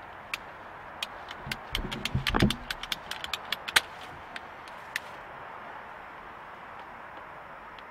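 Hand-held PVC pipe cutter biting into half-inch PVC pipe: a quick run of clicks and crunches as the handles are squeezed, densest in the middle and ending with a sharp snap, then a few scattered clicks.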